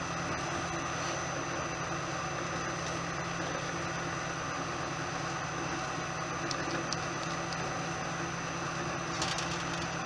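Milling machine spindle running free with an end mill in a spring collet, not cutting: a steady, even hum. A few light clicks near the end.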